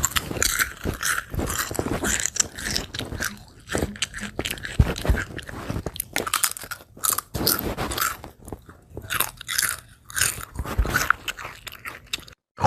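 Biting and chewing on crisp food: a long run of irregular, loud crunches, cutting off just before the end.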